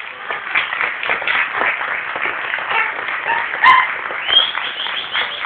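Audience applause: a patter of many hand claps, with a short sharp call about three and a half seconds in.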